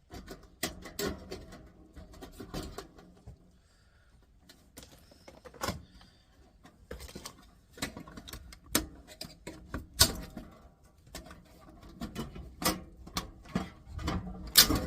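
Irregular clicks, knocks and clatter of plastic and sheet-metal parts of a cassette deck being handled and pulled apart, with a louder knock about ten seconds in and another near the end.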